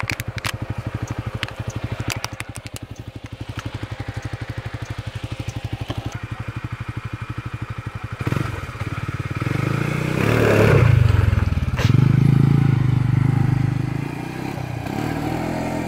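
Kymco MXU quad bike engine idling with a steady, rapid pulse, then revving up about eight seconds in as the quad pulls away. It is loudest for a few seconds while accelerating, then eases off as the quad moves off.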